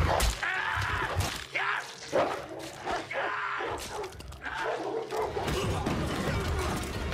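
Film sound of hounds snarling and savaging a man in irregular rough bursts. A little past halfway it cuts to a steadier background of a crowded hall.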